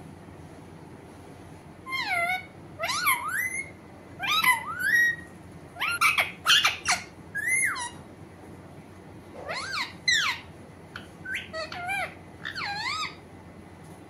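Alexandrine parakeet vocalizing: a run of short, loud calls that swoop up and down in pitch. The calls pause briefly about eight seconds in, then a few more follow.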